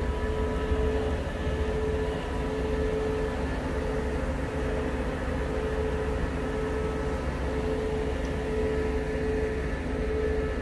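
Rail track-maintenance vehicle running steadily: a low rumble under a high tone that keeps breaking off and resuming.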